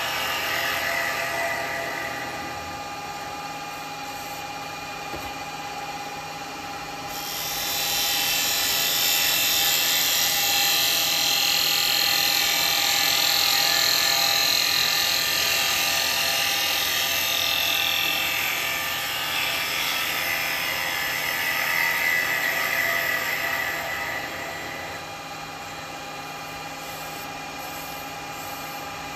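Wood lathe running with a steady motor hum while a turning tool cuts into a small bowl. The cutting hiss swells loud about seven seconds in and drops back with a few seconds to go.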